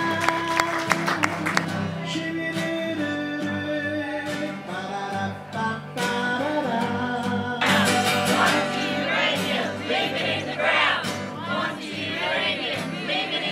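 A song on acoustic guitar with a singing voice. Strummed chords and held notes come first; about eight seconds in the voice grows louder and wavers on its notes.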